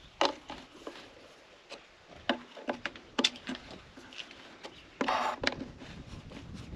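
Scattered clicks and taps of a screwdriver and fingers on a plastic electrical box as its lid screws are done up. There is a short rustle about five seconds in.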